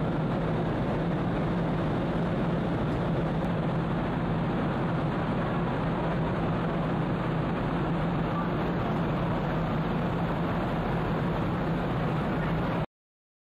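Steady low hum and rushing noise of a large car ferry's engines and machinery heard from the deck; it cuts off suddenly near the end.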